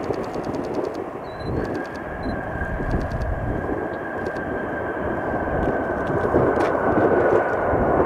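Jet noise from a Boeing 787-9 Dreamliner's Rolls-Royce Trent 1000 engines: a steady rush of engine noise with a faint high whine held through the middle, growing louder over the last few seconds.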